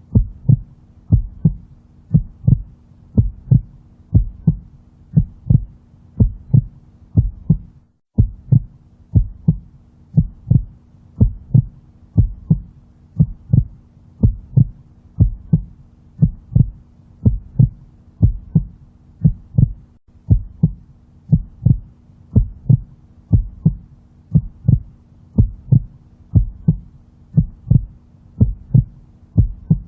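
Heartbeat sound in a steady, even double-beat rhythm, lub-dub, a little over one beat a second, over a faint steady low hum. The track drops out for a split second about eight seconds in.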